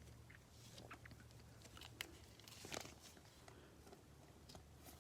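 Faint rustling and a few soft clicks of baseball cards being handled and shuffled, over a low steady hum.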